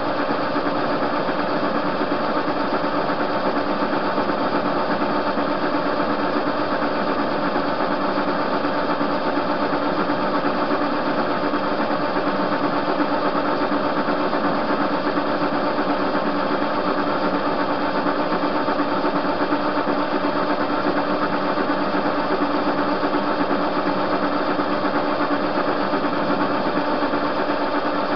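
TV-16 screw-cutting metal lathe running at a steady speed while turning down a metal bar, a constant machine hum and whine of several tones with no change.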